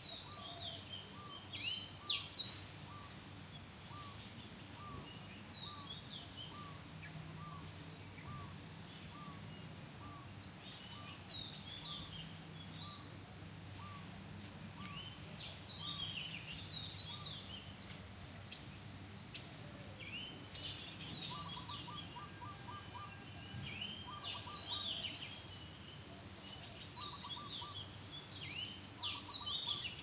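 Weaver birds chattering in many short, quick chirps and squeaky sweeps. Another bird repeats a lower single note about twice a second, then gives faster short runs of notes in the last third. A faint steady low hum runs underneath.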